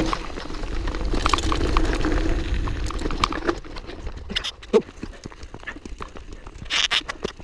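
Mountain bike descending a dirt singletrack: rumbling wind noise on a helmet camera's microphone over rattling and sharp clicks and knocks as the bike rolls over roots and bumps. It is louder in the first half and eases off about halfway through, leaving scattered clatter and a short rough burst near the end.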